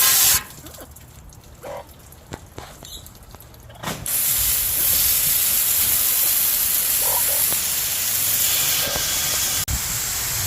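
Garden hose spraying water: a brief burst of spray at the start, then, after a quieter pause, the spray comes back on about four seconds in as a steady hiss.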